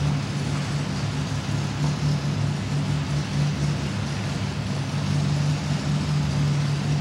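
Fiat 8V's V8 engine idling steadily, a low, even hum.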